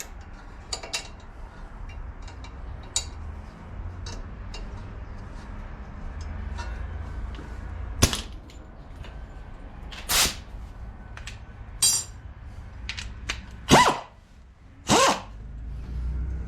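Hand tools working on bolts: scattered metallic clicks and clinks of a socket and wrench, with several louder ringing clanks of metal on metal in the second half, over a low steady hum.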